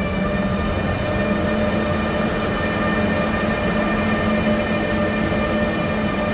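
ÖBB class 1116 Taurus electric locomotive hauling a Railjet train out of the station at low speed: a steady rumble with an electric whine holding one pitch.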